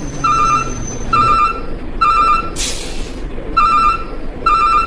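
Truck reversing alarm beeping, five short beeps about once a second over a low engine rumble, with a short hiss of an air brake in place of one beep about halfway through.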